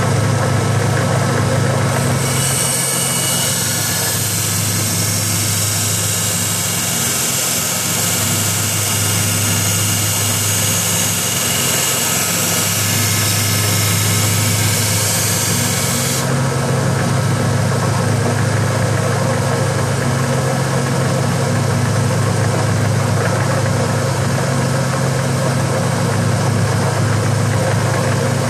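A 1x30 belt sander running steadily with a low hum. From about two seconds in to just past halfway, a steel sword blade is ground against the belt, adding a loud hiss over the motor as the blunted edge is taken down. The hiss then stops while the sander keeps running.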